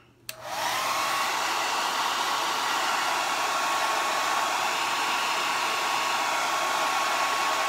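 Handheld hair dryer switched on with a click, its motor whine rising briefly as it spins up, then blowing steadily.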